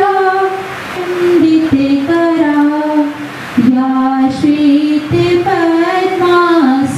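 A woman singing a slow devotional song, as sung at lamp lighting before the goddess Saraswati, with long held notes that slide gently from one pitch to the next.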